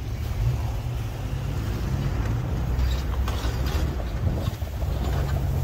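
Jeep Wrangler's engine running with a steady low rumble as it slides down a slippery snow-covered slope, the brakes unable to hold it.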